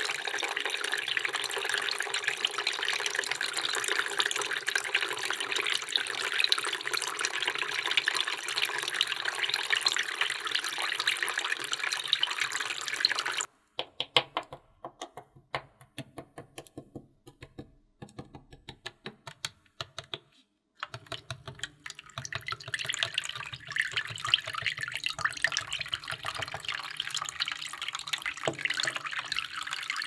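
Water pouring steadily into a small glass-lined pool, then several seconds of light separate clicks and taps, then water pouring again.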